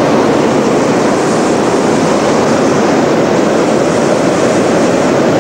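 Hot-air balloon's propane burner firing in one long continuous blast, a loud steady rushing noise with no break. The burn is heating the envelope to climb away from low level.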